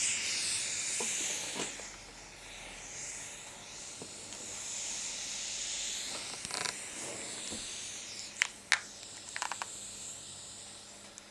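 A smartphone's FM radio hissing with static, tuned to a frequency where nothing is transmitting. A few short clicks of handling come about two-thirds of the way in.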